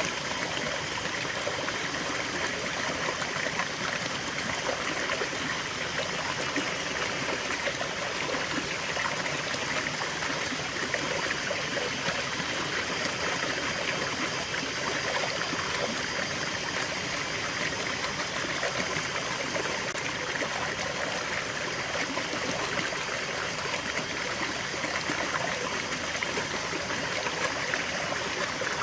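Small stream of water running steadily, a continuous trickling and babbling.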